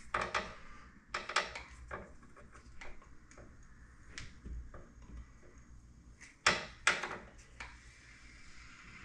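A spray-foam gun being handled and worked against a metal breaker panel: scattered clicks and knocks, the two loudest close together about six and a half seconds in.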